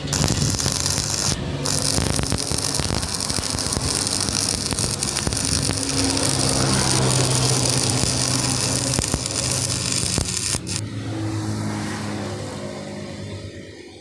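Angle grinder working steel with a continuous scraping noise. About ten and a half seconds in the grinding stops and the motor winds down, its pitch falling as it fades.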